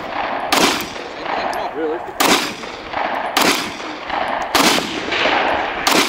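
Rifle shots on an outdoor range: five single shots at an irregular pace, roughly a second to a second and a half apart, each trailed by echo.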